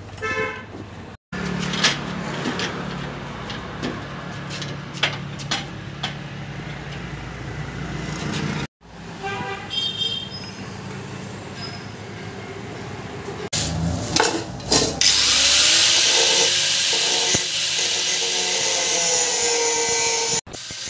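Ringing metal clinks and knocks of a wrench and a steel motorcycle exhaust pipe being handled. Then, late on, an angle grinder's cut-off disc grinding through the exhaust header pipe: a loud hissing grind with a whining tone, the loudest sound here.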